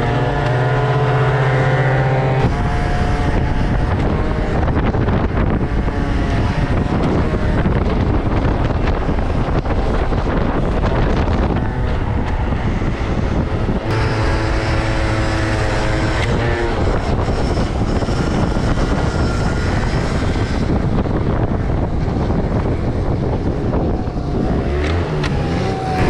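Small two-stroke moped scooter engine running at speed, with heavy wind rushing over the microphone. The engine's pitch shifts with the throttle and stands out clearly near the start and again about halfway through, with wind dominating in between.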